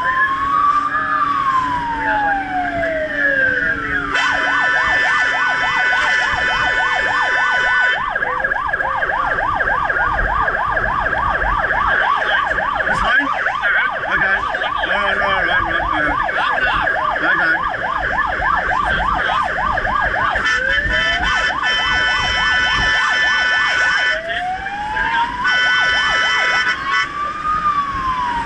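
Fire truck's electronic siren heard from inside the cab while responding. It switches between a slow rising-and-falling wail at the start and end and a fast repeating yelp through the middle. Stretches of a steady blaring tone sound over it a few seconds in and again near the end.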